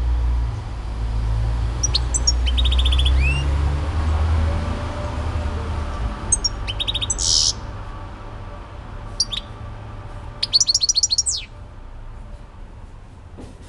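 Caged European goldfinch singing in four short bursts of rapid, twittering notes, one of them ending in a buzzy note, the last burst being the loudest. A low rumble underlies the first half.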